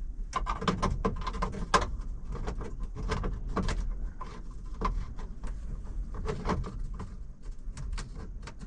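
Irregular clicks, taps and light knocks from hands handling parts and tools, over a steady low hum.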